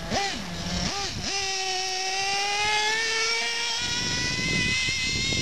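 Small radio-controlled car engine buzzing: a couple of quick throttle blips, then held throttle with the note climbing slowly in pitch as the car speeds off across the grass.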